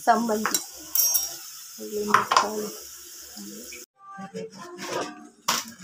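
Kitchen cookware noise: a pan being handled on a gas stove over a steady hiss, then, after a cut, clinks and knocks from a steel pot as a hand reaches into it.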